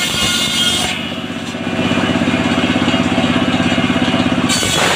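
Large circular sawmill blade ripping sengon wood, the cut trailing off about a second in. The tractor engine driving the saw then runs steadily with the blade spinning free, until the blade bites into the next plank just before the end.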